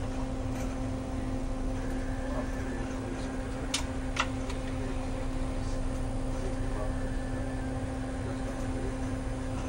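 Steady drone of the research vessel CCGS W.E. Ricker's engines and deck machinery: a constant hum over a low rumble. Two sharp clicks about half a second apart near four seconds in.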